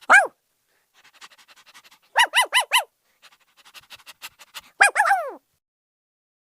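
A dog yipping: one falling yelp at the start, a quick run of four high yips about two seconds in, and a longer falling yelp near the end, with faint quick panting in between.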